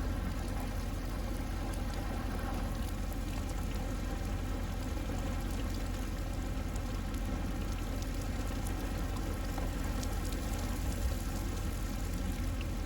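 Steady rain falling: an even, continuous hiss with a low rumble beneath it.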